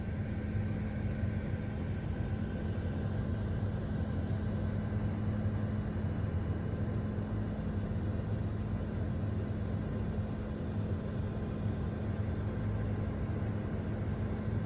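An engine running steadily: a constant low drone with an even hum and no changes in speed.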